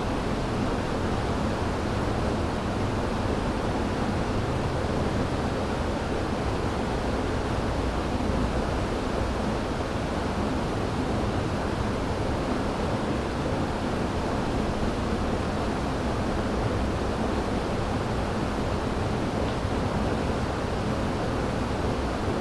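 River water rushing over rocks: a steady, even rush of flowing water, strongest in the low and middle range.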